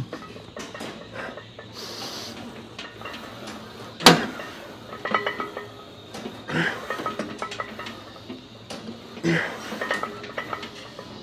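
Metal clinking and clanking of a loaded Smith machine bar and its weight plates during incline pressing reps. One sharp metal clank about four seconds in is the loudest sound, and shorter clinks and knocks follow every second or two.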